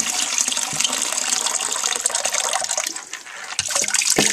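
Water pouring and splashing out of a plastic gallon water jug. The flow thins about three seconds in, and there are a couple of short knocks near the end.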